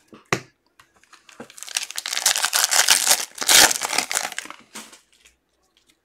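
A foil trading-card pack being torn open by hand, the wrapper crinkling and rustling for about three seconds, loudest in the middle, after a single sharp click near the start.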